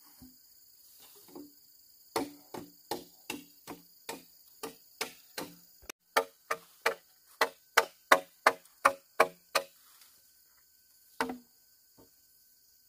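A steady run of chopping knocks, about three a second, each with a short hollow ring. One more knock comes near the end.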